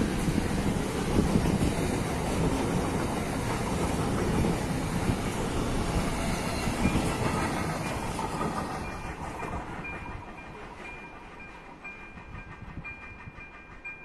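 Freight train wagons rumbling and clattering past on the rails, fading as the last wagons clear the crossing about two-thirds of the way through. As the train noise dies away, the level crossing's warning bell is heard ringing steadily, about once a second.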